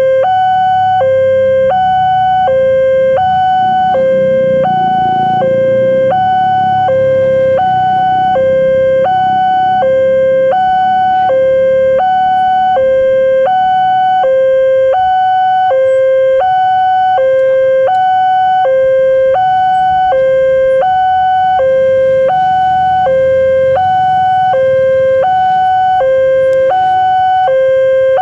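Indonesian railway level-crossing warning alarm sounding from the loudspeaker on the signal mast: a loud electronic two-note chime, low note then high note, repeating steadily at about one pair every second and a half. It signals that the barriers are down for an approaching train. A low rumble runs underneath at times.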